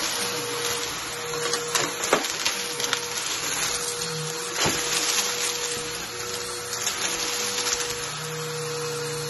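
Bagless upright vacuum cleaner running steadily over a shag rug, its motor holding one steady tone, with sharp clicks and crackles about two seconds in and once near five seconds as debris is sucked up from the pile.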